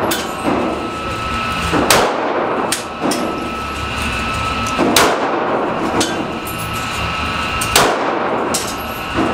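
Glock .40 pistol firing in an indoor range: three loud, sharp shots about three seconds apart, each with a short echo. A few fainter cracks fall between them.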